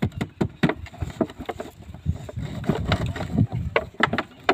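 Thin clear plastic bottle with a snake inside crinkling and knocking as it is gripped and handled, an irregular run of sharp clicks, several a second.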